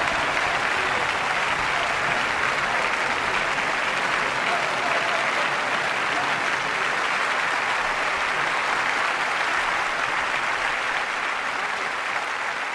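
Applause from a crowd, a steady even clapping that eases off slightly near the end.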